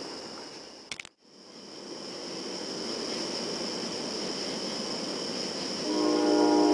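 Outdoor background noise with a steady high-pitched buzz, broken by a few clicks and a brief dropout about a second in. Near the end a locomotive air horn starts sounding, a loud steady chord of several notes.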